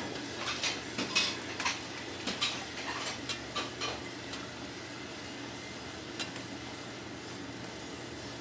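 Metal clinks and taps of a wire-mesh strainer and utensils against a large aluminium pot of boiling soba noodles: a quick flurry in the first four seconds and one more tap about six seconds in. Under them runs the steady hiss of the boiling water and burner.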